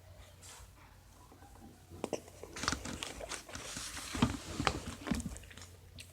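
Close-up mouth sounds of eating macaroni and cheese: chewing with small wet clicks, starting about two seconds in.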